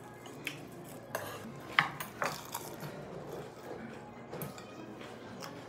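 Cutlery and dishes clinking during a meal: a scatter of short, sharp clinks, the loudest a little under two seconds in.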